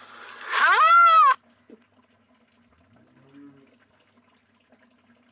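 Indian rhinoceros giving a high, pitched call that rises and then falls, lasting under a second, about half a second in. After it the sound is quiet except for a faint low hum about three seconds in.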